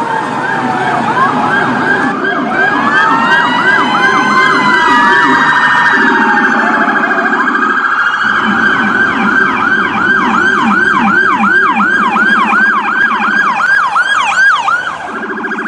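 Electronic emergency-vehicle siren switching between tones. It goes from rapid sweeps through a stretch of overlapping slower rising and falling glides, then settles into a fast yelp of about two to three sweeps a second, and changes tone again near the end.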